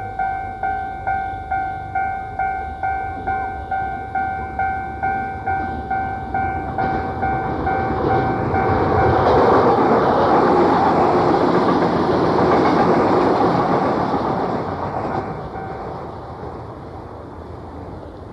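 Electronic level-crossing alarm bell ringing in a steady two-tone clang, about two strokes a second, on an old, low-fidelity cassette recording. A Keio Inokashira Line commuter train then comes through with a rising and fading rush of wheel and rail noise, and the bell stops about eight seconds in.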